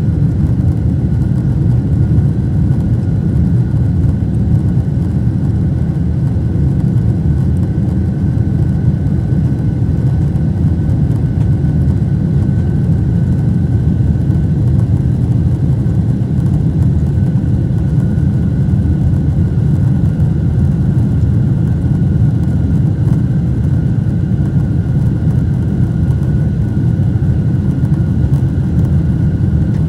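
Boeing 747 jet engines and airflow heard from inside the cabin during the climb after takeoff: a loud, steady, unbroken low rumble with a faint steady high tone above it.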